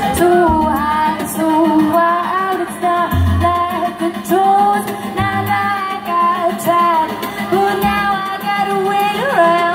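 Live electropop music: a woman singing a melody over deep synth bass notes and an electronic beat.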